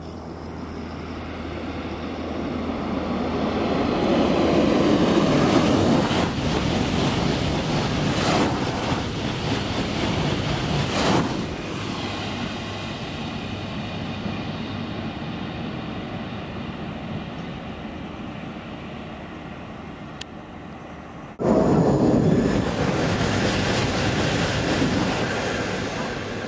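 TGV high-speed trains passing at speed: a rushing noise of wheels and air swells for several seconds and fades. About three-quarters of the way through, after a sudden cut, another train's rush starts loud.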